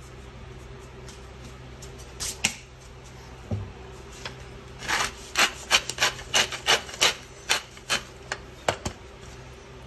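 Wooden pepper mill being twisted to grind pepper: about a dozen short grinding strokes, roughly three a second, starting about five seconds in.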